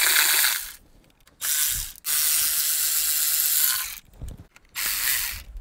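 Cordless electric ratchet spinning out 10 mm oil pan bolts. The motor runs in four short bursts, the longest about two seconds.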